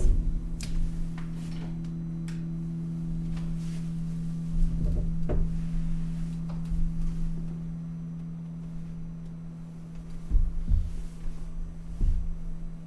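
A large carillon bell's low hum ringing on after being struck and fading slowly, one of its higher overtones dying out about four seconds in. Over it come soft clicks and a few low thumps and knocks as the player stands, stretches and sits back down on the wooden bench at the console.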